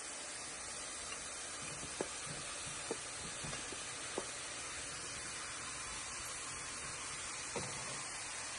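Sliced leeks frying in a stainless steel pan with a steady sizzle, and a few light knocks as sliced mushrooms are scraped off a bowl into the pan with a wooden spatula.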